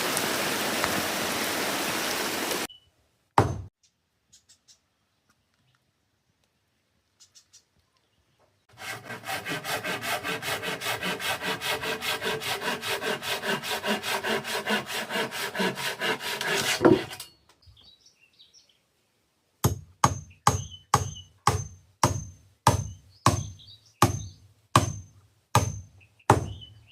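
Heavy rain that cuts off abruptly after about three seconds. Later comes a fast, even run of rasping strokes, about five a second, lasting around eight seconds, then a string of sharp knocks about two a second, like blows of a hand tool.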